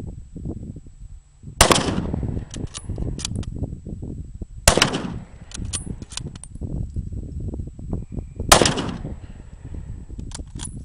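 A 1903 Springfield bolt-action rifle in .30-06 fires three shots, three to four seconds apart. Between the shots come the metallic clicks and clacks of the bolt being worked to chamber the next round.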